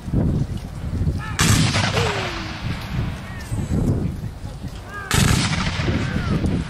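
Two volleys of black-powder muskets fired by a line of infantry, the first about a second and a half in and the second about five seconds in. Each is a sudden crash that trails off into a rolling, echoing rumble.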